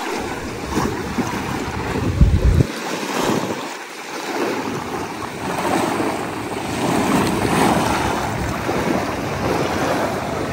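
Sea waves washing on the beach, with wind buffeting the microphone in gusts, the strongest about two seconds in.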